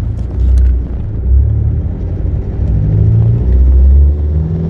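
Low rumble of a Mitsubishi Triton's turbo-diesel engine and road noise heard from inside the cab while driving at low speed, swelling and easing in level several times.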